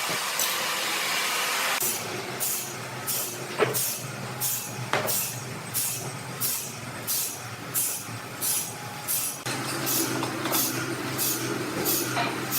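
Sawmill machinery running with a steady low hum and a rhythmic hiss that pulses about three times every two seconds. One sharp knock comes about a quarter of the way in.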